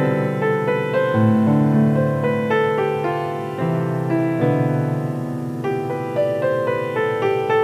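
Piano music: a calm melody over held chords, the notes changing about every half second to a second.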